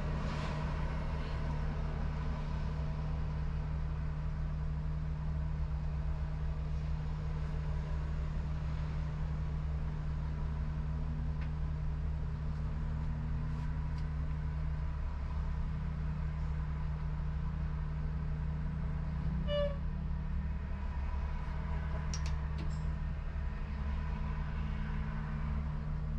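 Steady low hum of a car idling at a stop, heard from inside the cabin, with other traffic passing. A short beep sounds once, about twenty seconds in.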